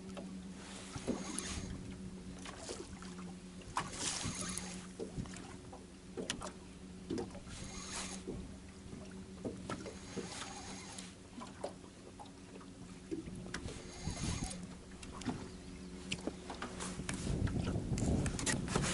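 Small wind-driven waves slapping and lapping against a motorboat's hull in irregular knocks, over a steady low hum. A louder low rumble comes in near the end.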